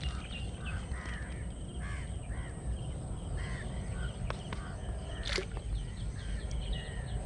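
Birds calling repeatedly, short rising-and-falling calls about twice a second, over a steady low rumble. A single sharp click a little over five seconds in.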